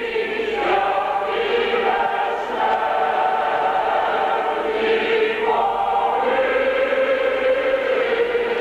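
Choir singing a slow Byzantine-rite memorial chant (panakhyda) in long held chords that change every few seconds.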